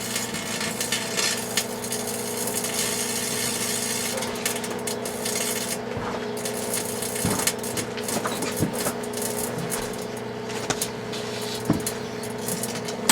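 Microwave oven running with a steady electrical hum, while the shatterproof light bulb inside crackles and gives off scattered sharp clicks as it heats and breaks down.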